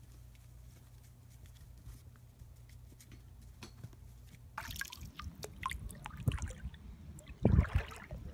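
Shallow water splashing and sloshing around a small pet wading through it on a leash, irregular and getting louder, with a few heavier low thumps near the end. Before that, about the first half is faint, with a low hum and a few light taps.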